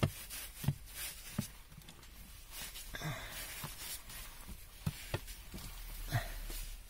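Soft, irregular taps and rubbing as a ball of kids' slime is pressed and rolled around a textured plastic tray in a car console, lifting dust and debris.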